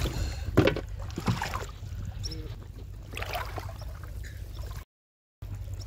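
Shallow water splashing and sloshing as a person wades and pushes an aluminium pot through it, with water poured from a plastic bottle at the start. The sound cuts out briefly near the end.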